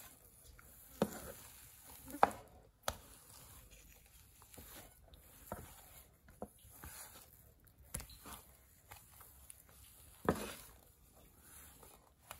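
Wooden spatula working thick, sticky dough in a nonstick frying pan: soft squishing and scraping, with occasional sharp knocks of the spatula against the pan, the loudest about two seconds in and near the end.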